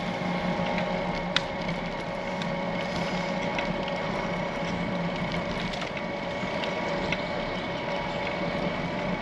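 Steady rolling noise of a bicycle ride: tyres on the road and air rushing past, under a steady hum, with a few light ticks.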